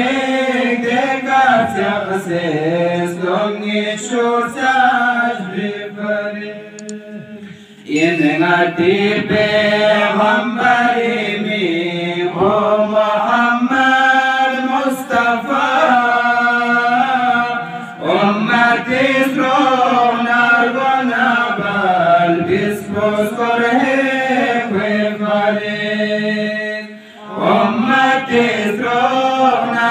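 A man's voice chanting a Balti devotional qasida in long, melodic, drawn-out phrases, with brief pauses for breath between lines.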